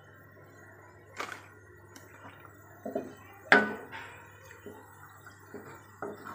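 A spoon stirring thin rasam in a metal kadai, knocking and clinking against the pan a few times, loudest about three and a half seconds in.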